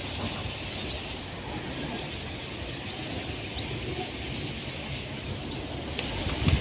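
Riverside outdoor ambience: a steady low rumble with a few faint, brief bird chirps, and a couple of louder knocks near the end.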